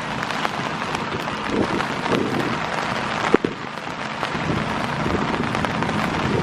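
Steady rain falling, with a single sharp knock about three and a half seconds in.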